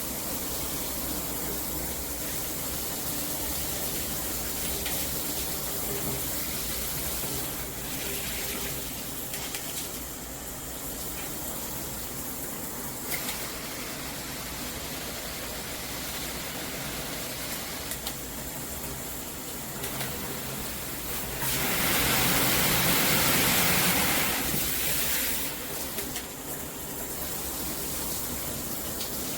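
Handheld filtered shower head spraying water steadily, with a louder, hissier stretch about three quarters of the way through.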